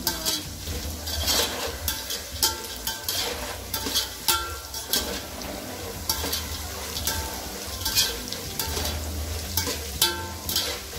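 Peanuts, roasted chana dal, garlic and curry leaves sizzling in oil on a low flame in a metal pot. A wire-mesh skimmer stirs them, scraping and clinking against the pot about once a second.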